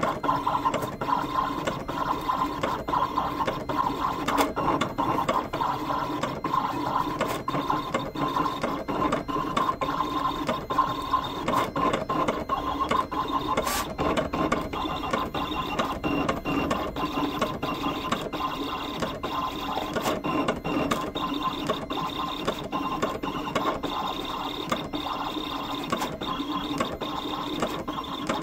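Siser Juliet vinyl cutting machine running as it cuts a stencil: a steady motor whir that changes as the carriage moves, with frequent small clicks throughout.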